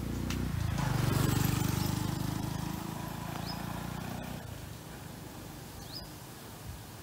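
A motor vehicle's engine passing by, growing louder to a peak about a second in and fading away by about four seconds. Two short rising bird chirps sound partway through and near the end.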